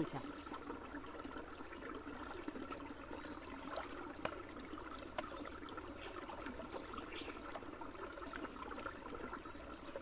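Small forest stream trickling over rocks, a steady gentle burble, with a couple of faint clicks about halfway through.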